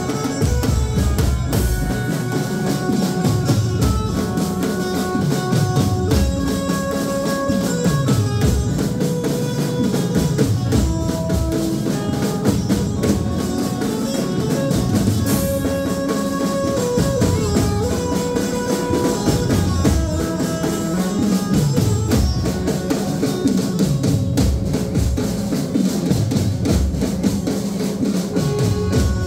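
Loud dance music with a steady drum beat, a repeating bass line and a melody of held notes.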